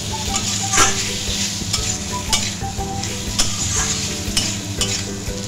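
A metal spatula stirring and scraping potatoes and spice paste around a metal kadai over a steady sizzle of frying. Sharp scrapes of the spatula against the pan come about once a second. The potatoes are being fried down (koshano) in the masala.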